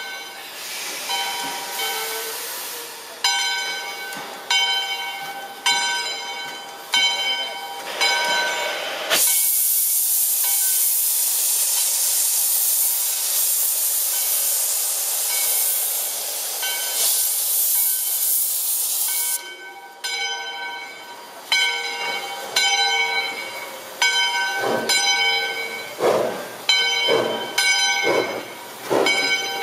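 Steam locomotive No. 40, a 2-8-2, starting a train. Its bell rings with a slow, steady stroke, then the cylinder cocks blow steam in a loud hiss for about ten seconds. After about twenty seconds the bell rings again, and exhaust chuffs begin and quicken as the engine pulls away.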